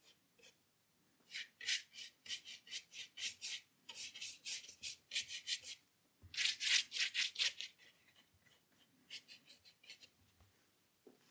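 A paintbrush dry-brushing across textured watercolour paper: a run of short scratchy strokes, about three a second, with a louder flurry of strokes about six seconds in.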